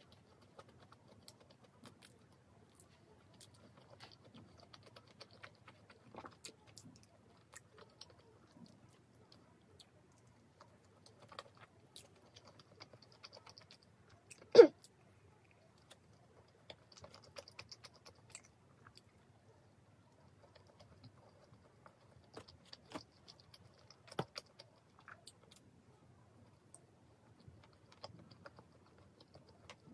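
Close-miked chewing of pizza and crust: scattered soft crunches and small mouth clicks, with one much louder sharp click about halfway through.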